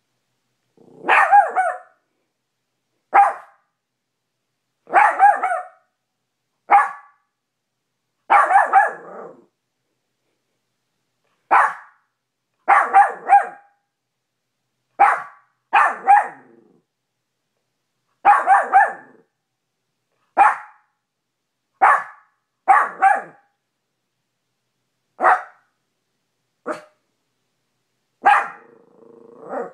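A maltipoo, a small dog, barking sharply at its own reflection in a mirror: about twenty short separate barks at irregular intervals, some in quick pairs, with a brief low growl near the end.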